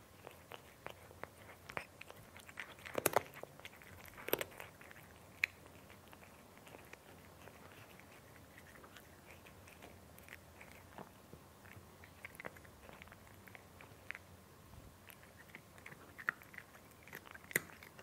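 A cat eating crunchy food: irregular crunches and small clicks of chewing, with louder bites about three and four and a half seconds in and again near the end.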